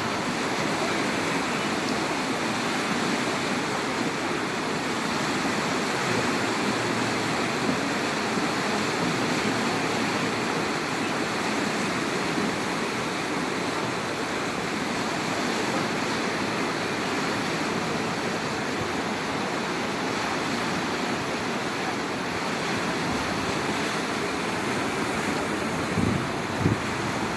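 Fast current of the Manzanares river in flood, a steady rushing of water, with a few low bumps near the end.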